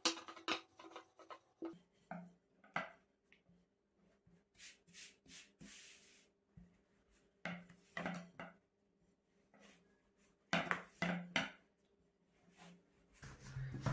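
Long thin wooden rolling pin (oklava) rolling and knocking on a floured tabletop while thin yufka dough is rolled out: brief knocks and rubs in separate clusters every second or two, with quiet gaps between.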